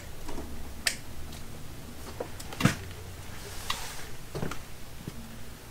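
A few separate light clicks and knocks of small objects being handled, the loudest about two and a half seconds in, over a low steady hum.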